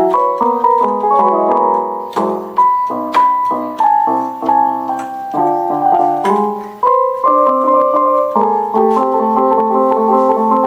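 Electronic keyboard played with a piano voice: a melody over chords, ending in a quick repeated broken-chord pattern.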